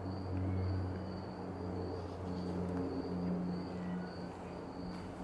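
Insect chirping in a steady, high-pitched pulse a little under twice a second, over a low steady hum.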